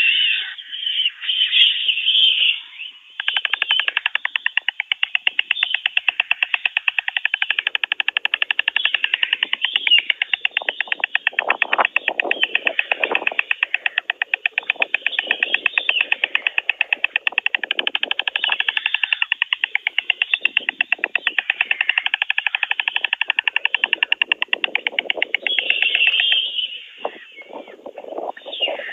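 White storks clattering their bills: a fast, even wooden rattle that starts about three seconds in and runs for some twenty seconds before stopping near the end. Wing-flapping rustles are mixed in.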